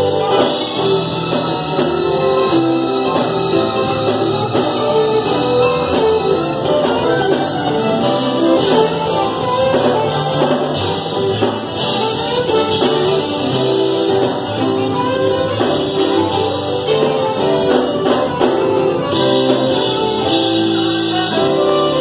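Saxophone playing a smooth gospel-jazz melody live, with keyboard accompaniment.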